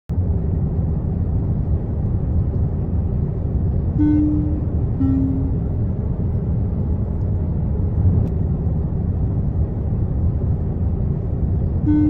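Steady drone of an airliner cabin in flight, with a two-note descending cabin chime about four seconds in and another starting near the end.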